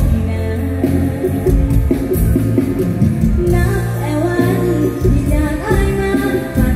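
Live mor lam band music through a PA system, electric guitars over a steady bass, with a young woman singing into a microphone.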